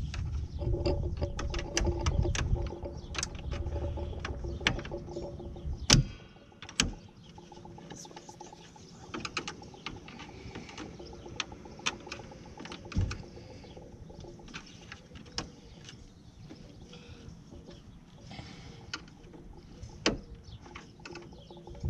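Scattered clicks, taps and sharp snaps of a hand tool working against the plastic and metal of a headlight mounting. A low rumble runs under the first six seconds and then stops abruptly. The loudest snaps come about six seconds in, about thirteen seconds in and near the end.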